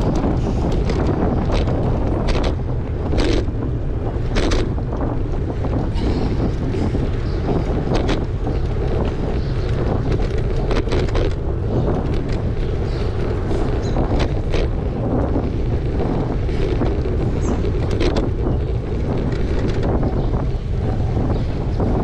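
Wind buffeting a GoPro's microphone as a steady low rumble, with scattered sharp clicks and knocks throughout.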